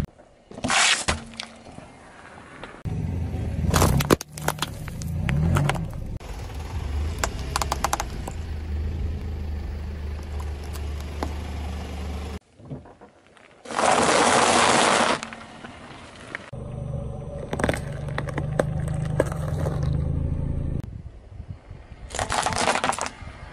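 A car's tyre rolling over and crushing small objects on asphalt, with the engine running low underneath. Cracks, crunches and snaps come as things break under the tyre. One loud burst of noise about fourteen seconds in comes as plastic disposable lighters are crushed, and dry nut shells crunch near the end.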